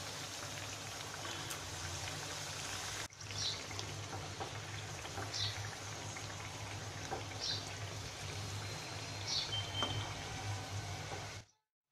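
Potato kachoris deep-frying in hot oil in a wok: a steady sizzle, broken briefly about three seconds in and cutting off suddenly just before the end.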